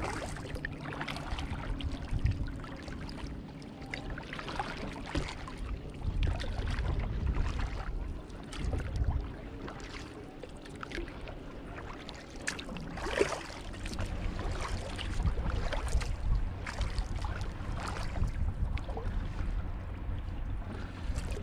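Kayak paddle blades dipping and splashing in calm river water about once a second, with drips and light lapping at the hull. A low wind rumble on the microphone comes and goes.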